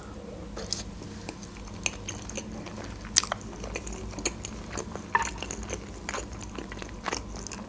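Close-miked chewing of a soft boiled pelmeni dumpling: irregular wet mouth clicks and smacks.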